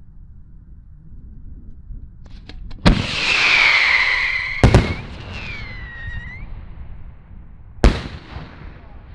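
Fireworks going off: a few small pops, then three loud bangs about two and three seconds apart. Between the first two bangs runs a loud whistling hiss that dips and rises in pitch, and a shorter whistle follows the second.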